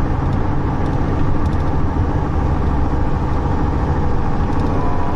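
Steady low rumble of motor-vehicle noise with no clear events, like an engine or traffic running continuously.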